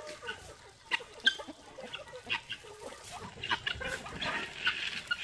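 Chickens clucking amid a mixed flock pecking at scattered corn kernels, with short calls and irregular sharp clicks scattered through it.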